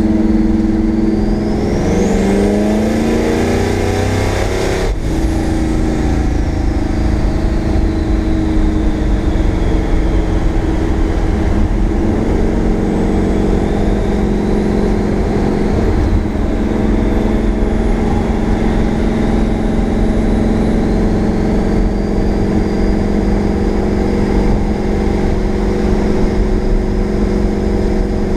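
Twin-turbo 393 small-block V8 of a 1965 Mustang heard from inside the cabin, pulling with rising pitch while a high turbo whistle climbs with it. It breaks off sharply about five seconds in as the revs drop, then runs steadily at cruise with the whistle coming back later.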